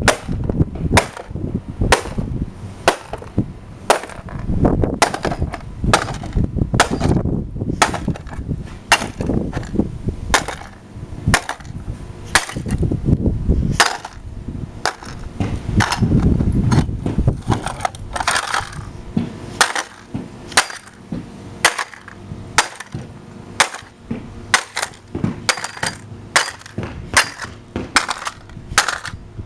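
Crowbar repeatedly smashing a plastic airsoft gun stock: sharp blows about one to two a second, coming faster toward the end.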